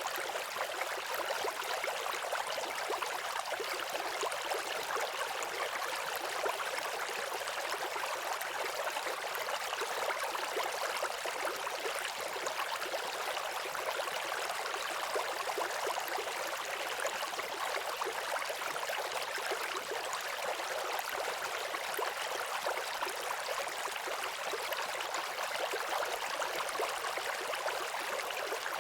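Waterfall rushing steadily: an even hiss of falling water with little deep rumble.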